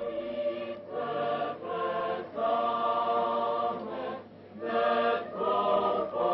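Background choral music: a choir singing held chords in short phrases, with a brief pause a little past the middle.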